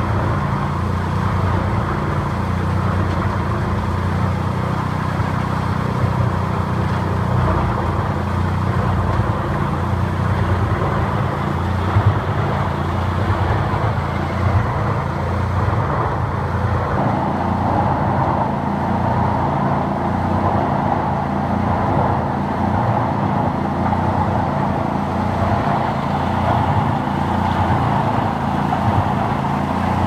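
Heizohack HM 8-500K woodchipper and the tractor powering it running steadily under load, chipping logs fed in by a crane grapple. There are two brief sharp knocks about twelve and fourteen seconds in.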